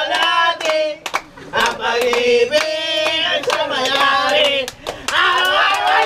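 A group of people singing a birthday song together, with many hands clapping along in rhythm.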